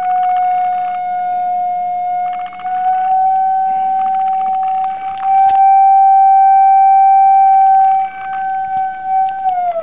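Gauss meter's audio tone: a steady whistle-like pitch with overtones, holding nearly level and creeping slightly higher, then starting to bend down in pitch at the very end. Its pitch follows the field strength the meter reads. Faint scratchy rustling comes and goes under it.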